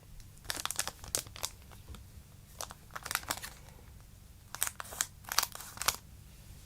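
Crinkling of a trading-card booster pack's plastic wrapper handled close to the microphone, in three bursts of rustling: near the start, in the middle and near the end.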